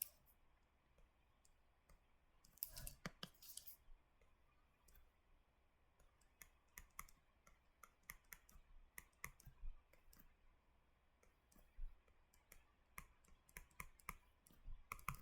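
Faint, irregular clicks and taps from a stylus and computer controls used to draw on screen: a short cluster about three seconds in, then scattered single clicks.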